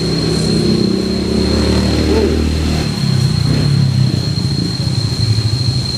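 A motor vehicle engine running steadily with a low rumble that eases off about three seconds in.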